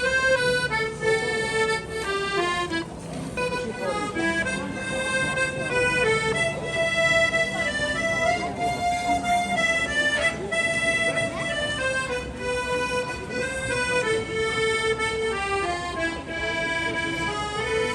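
Instrumental music: a melody of held notes over a low, sustained accompaniment.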